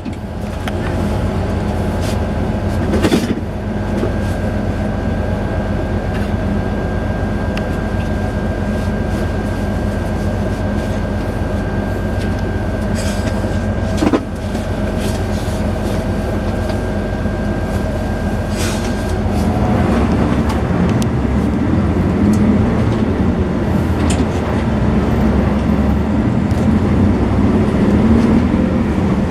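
Steady rumble of a moving vehicle heard from on board, with a thin steady whine through the first two-thirds, a couple of sharp knocks, and a heavier rumble in the last third.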